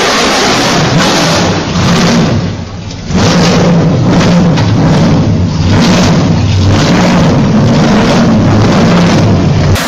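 Nissan Silvia's 6.2-litre LS3 V8 held at high revs during a burnout, with the spinning rear tyres screeching. The revs and noise drop briefly about two and a half seconds in, then come straight back on.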